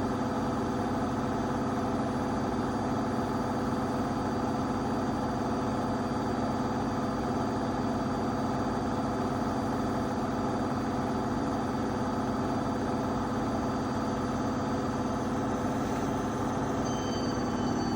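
AEG 8000 washing machine running, its drum and motor giving a steady hum with a few constant tones. Near the end a higher whine sets in and slides slowly down in pitch.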